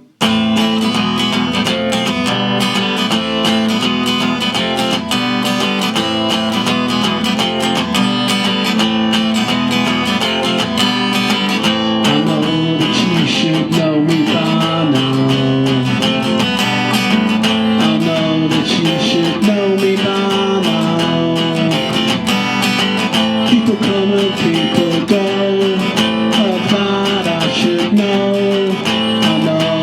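Solo acoustic guitar playing the opening of a song, strummed chords mixed with picked notes, starting suddenly at the very beginning.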